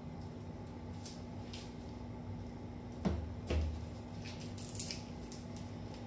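Shallot being peeled by hand: the dry papery skin gives soft crinkles and light clicks, with a couple of low knocks about three seconds in. A faint steady low hum runs underneath.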